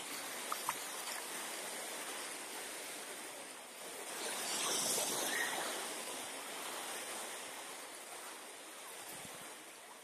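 Black Sea surf breaking on a sandy beach: a steady wash of waves that swells to its loudest midway and then recedes. Two short ticks about half a second in.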